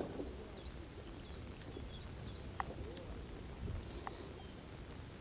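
Wild birds calling: a series of short, high chirps that each fall in pitch, repeating every half second or so, with fainter lower calls underneath and a low outdoor hum.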